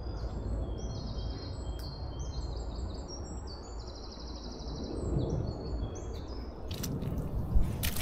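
Small songbirds chirping and singing in the woods: quick, high, stepped notes through most of the stretch, over a steady low rumble. A few sharp knocks come near the end.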